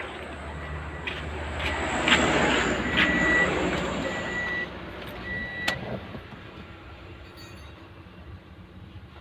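Vehicle rumble that swells about two seconds in and fades away by about six seconds, with a high whine over it, three short high beeps about a second apart, and several sharp clicks and knocks as a car door is opened and someone gets in, the loudest click near the six-second mark.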